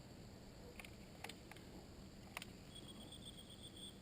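Near silence, with a few faint sharp clicks in the first half and a faint, high, pulsing trill near the end.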